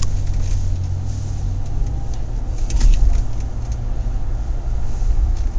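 Taxi cab interior road and engine noise from the back seat: a steady low rumble, with a brief knock or jolt about halfway through.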